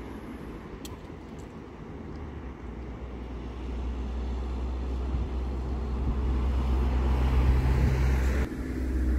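Road and engine noise heard inside a moving car: a low, steady rumble that grows louder over the seconds and breaks off briefly near the end.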